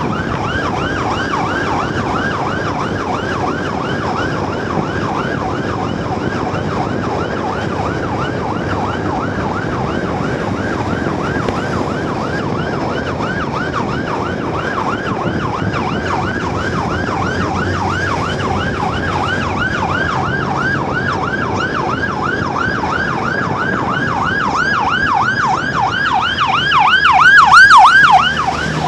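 Ambulance siren in a fast yelp, sweeping up and down in pitch about three times a second over low traffic noise. It grows louder near the end.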